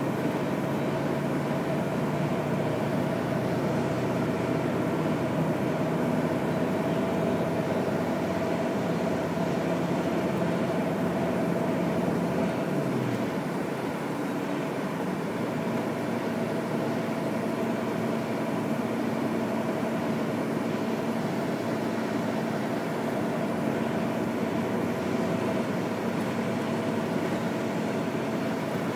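Engine and road noise heard from inside a moving road vehicle, a steady drone with a held whine. The engine's low hum drops in pitch about halfway through.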